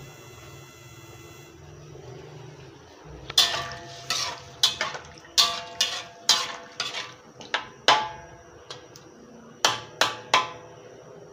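Metal spatula clanking and scraping against a metal wok while stirring, about a dozen sharp ringing strikes at an irregular pace, starting about three seconds in.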